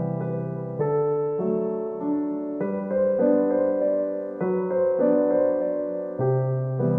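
Background piano music: a slow, gentle piano piece with soft chords changing about once a second.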